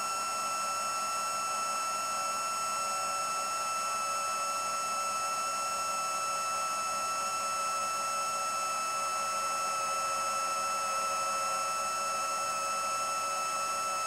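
Racerstar AirB 2514 brushless motors spinning HQProp 7040 two-blade propellers on an FPV quadcopter in steady forward flight: a continuous high whine with several pitches at once, easing slightly lower in pitch around nine to ten seconds in.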